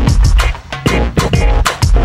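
Background electronic music with a steady drum beat.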